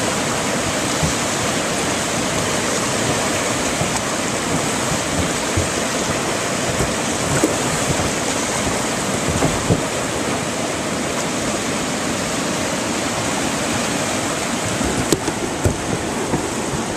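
Whitewater river rapids rushing steadily over and around rocks, close up, with a few brief knocks now and then.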